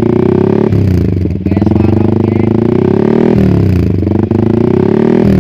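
Yamaha R15 V3's single-cylinder engine revved through an aftermarket R9 GP Series stainless exhaust. The pitch climbs steadily for a couple of seconds, falls back sharply, then climbs again near the end.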